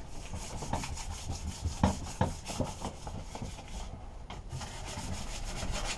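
Sandpaper rubbed by hand over a metal lawnmower handlebar tube, scraping off rust and old paint in quick back-and-forth strokes, with a brief pause about four seconds in.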